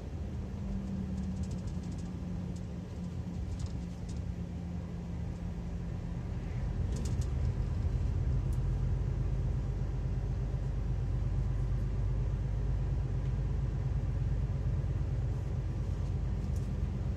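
Heavy truck's diesel engine and road noise heard inside the cab, a steady low drone that grows louder about seven seconds in as the truck accelerates onto the open road.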